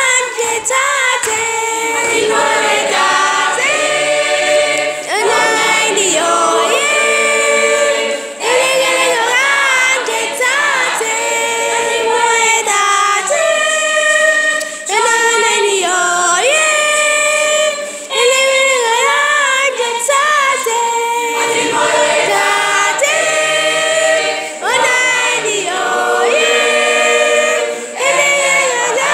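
Mixed choir of women and men singing a cappella.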